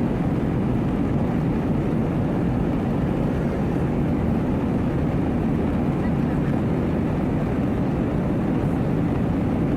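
Steady low roar of an Airbus A320-232's engines and airflow heard inside the passenger cabin in flight, even and unchanging.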